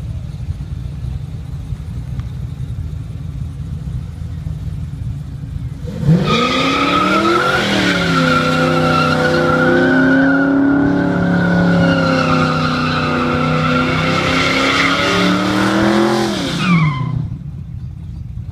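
Car burnout: the engine rumbles at idle, then about six seconds in is revved hard and held at high revs for about ten seconds while the rear tyres spin in the dirt. Near the end the revs drop quickly back to idle.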